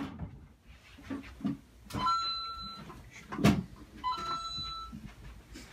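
A wooden under-bed drawer being handled and searched: several knocks and a thud about three and a half seconds in, with two short, high, steady squeaks, about two and four seconds in.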